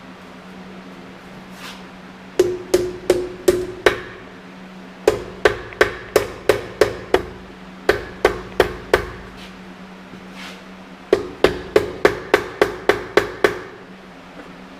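Light, quick hammer taps driving a piston down through a ring compressor into a cylinder bore of a Continental F162 engine, in several runs of three or four taps a second with short pauses between, over a steady low hum.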